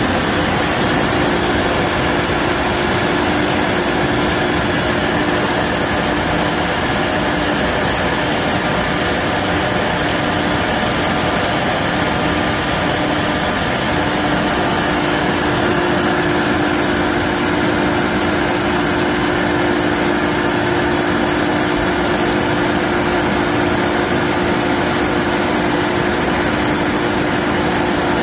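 MultiCam CNC router's spindle cutting a black plastic sheet, with dust extraction at the cutter: a steady, loud machine noise with a constant low hum.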